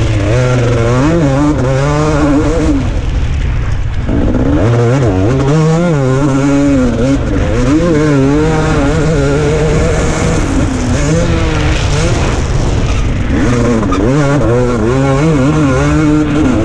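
KTM 250 SX two-stroke motocross engine, heard from on the bike, revving hard under load with its pitch climbing and falling every second or so as the throttle is opened and closed through turns and straights. The engine note briefly drops away about three to four seconds in.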